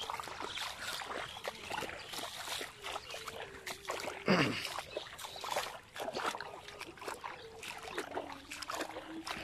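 Feet wading and sloshing through shallow, grassy floodwater, with irregular splashes and drips. A short call falls in pitch about four seconds in.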